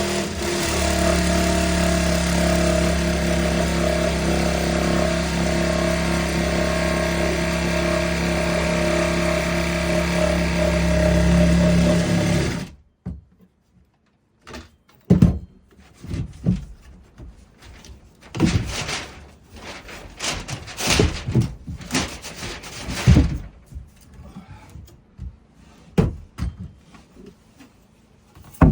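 An engine running steadily that cuts off suddenly about thirteen seconds in, followed by scattered knocks and thumps.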